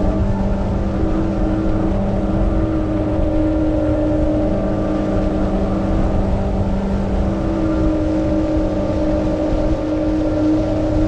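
Electric hydrofoil surfboard's motor and propeller running steadily, giving a constant hum of several steady pitches over a continuous rushing noise.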